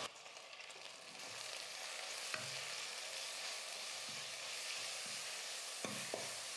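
Onions, tomatoes and ginger-garlic paste sizzling softly and steadily in oil in a stainless-steel pressure cooker as they are stirred and sautéed with a steel ladle, with a few light clicks of the ladle against the pot.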